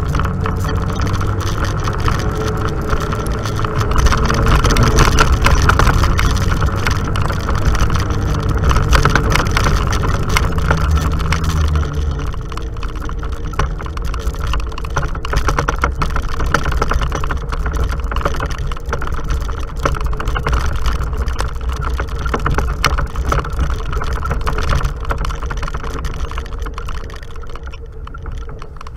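Off-road vehicle engine running steadily as it drives a bumpy dirt trail, with many short clicks and knocks of rattling over the rough ground. The low engine sound eases off about twelve seconds in.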